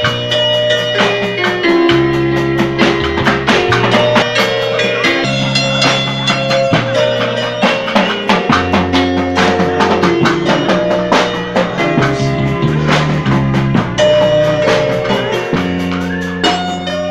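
Music with a steady drum beat over a bass line that changes note every second or two.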